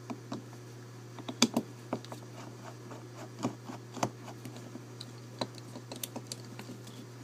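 Irregular small clicks and taps of metal lock parts being handled as a Dexter deadbolt is taken apart to get the cylinder out, with a few louder knocks among them.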